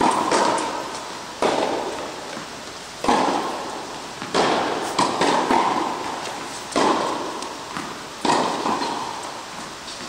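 Tennis ball struck by rackets and bouncing during a baseline rally on an indoor court. Each sharp hit rings out with a long echo through a large hall, about one every one to one and a half seconds.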